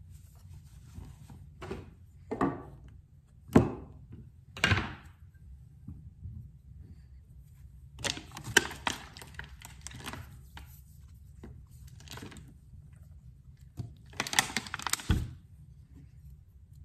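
Steel knife blade handled on and drawn across a sharpening stone: four separate knocks in the first few seconds, then two short runs of quick scraping strokes, the second ending in a knock.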